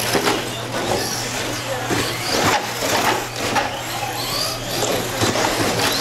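Several 1/10-scale electric short-course RC trucks racing on a carpet track: motors whining up and down as they accelerate and brake, with tyres scrubbing on the carpet and repeated sharp knocks and clatters from landings and hits against the track boards.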